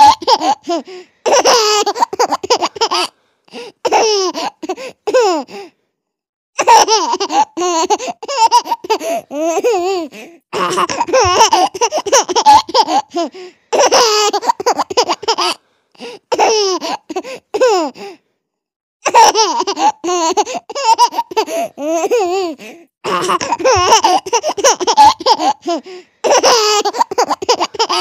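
A baby laughing in repeated bouts of high-pitched, breathy giggles and chuckles, each bout a few seconds long with brief pauses between.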